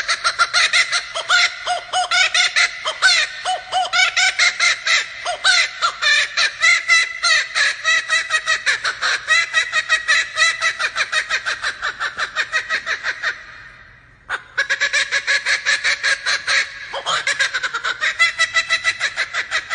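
Male laughing kookaburra giving its laughing call: a long, loud run of rapid cackling notes that breaks off briefly about two-thirds through and then starts up again.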